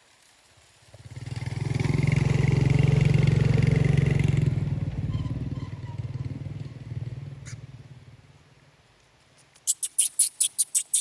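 A motorcycle passes by, its engine rising to a peak and then fading away over several seconds. Near the end a quick series of sharp, high chirps or squeaks begins.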